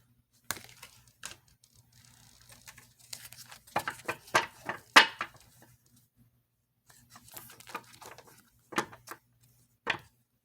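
Tarot cards being handled and shuffled: a scatter of sharp clicks and snaps, busiest and loudest about four to five seconds in, over a faint steady hum.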